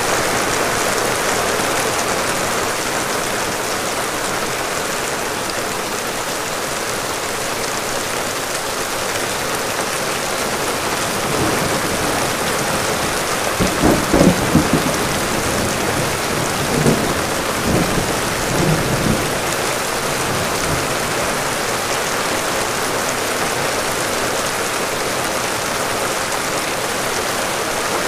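Heavy rain pouring steadily. About halfway through there are several seconds of low rumbling, loudest just after the middle.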